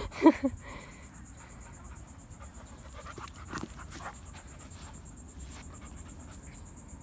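Insects chirring steadily in a high, even trill, with a short human vocal sound right at the start and a few faint rustles and ticks.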